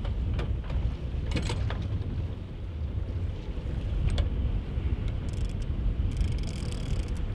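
Low, steady rumble of a fishing boat at sea with wind buffeting the microphone, broken by a few short clicks and, over the last two seconds, a patch of higher crackling hiss.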